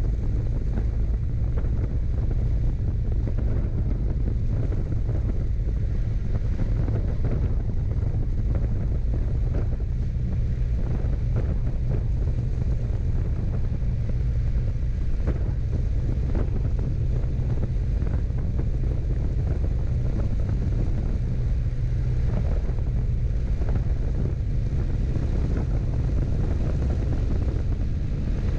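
Piper J-3 Cub's engine and propeller droning steadily in cruise flight, heard inside the cockpit with wind noise on the microphone.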